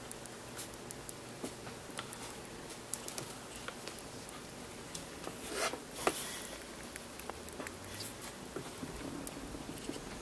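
A hamster eating seeds: a steady run of tiny irregular clicks and cracks as it husks and chews, with a louder crunching scrape about six seconds in.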